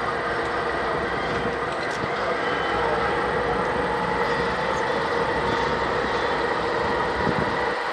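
CSX freight train's diesel locomotives running as the train rolls slowly past, a steady engine rumble with a steady whine held over it.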